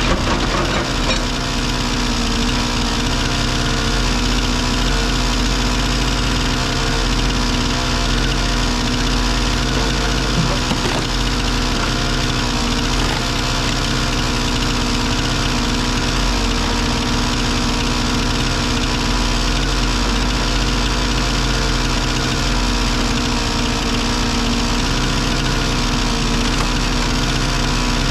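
Excavator diesel engine running at a steady speed, with a few faint knocks, one near the start and one about ten seconds in.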